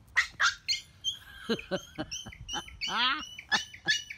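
Puppies yipping and squealing in quick, high-pitched bursts while play-fighting, with one longer wavering squeal about three seconds in.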